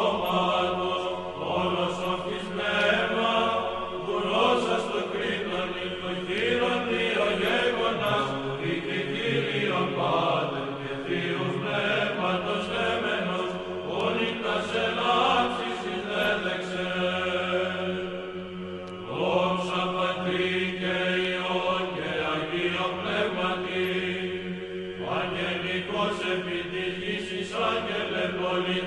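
Orthodox church chant: voices chanting a slow melody over a steady held drone note, phrase after phrase.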